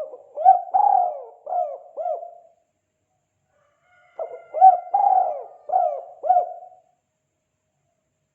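Spotted dove (tekukur) cooing in the 'kuk 2' call style: two phrases of four or five coos each, the second starting about four seconds after the first.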